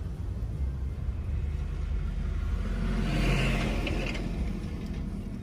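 A vehicle driving past over a steady low rumble, growing louder to a peak a little past the middle and then fading away.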